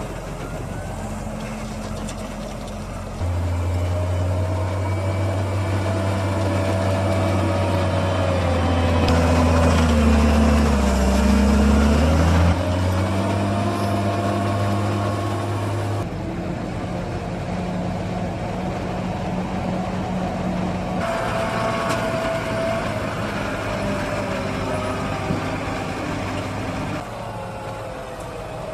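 Heavy diesel machinery working a maize silage pit: John Deere tractors unloading Kaweco forage wagons and a Case 621F wheel loader pushing chopped maize with its leveller blade. The engines run steadily, with a dip and rise in engine pitch around the middle, and the sound changes abruptly several times.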